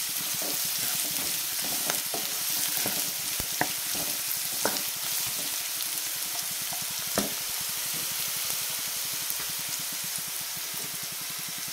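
Chopped onion, carrots and green beans sizzling steadily in hot oil in a non-stick pan, stirred with a wooden spatula that clicks and scrapes against the pan a few times. The vegetables are being lightly stir-fried, not cooked down.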